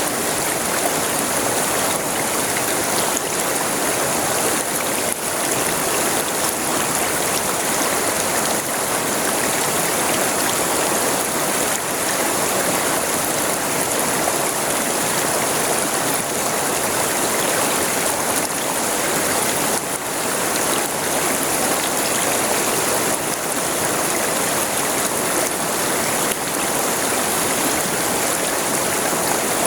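River water flowing steadily over its bed: a continuous, even rushing with no breaks.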